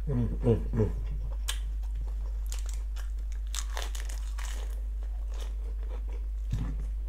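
Close-miked eating: crisp crunching bites and chewing of a mouthful with fresh lettuce leaf, the crunches clustered in the first few seconds and a few more near the end, over a steady low hum.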